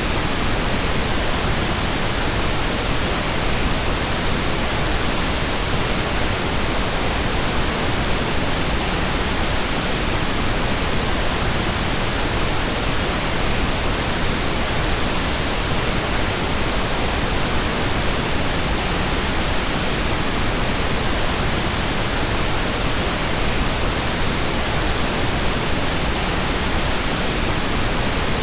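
Steady, unchanging pink noise: an even hiss spread across all pitches, with nothing else in it.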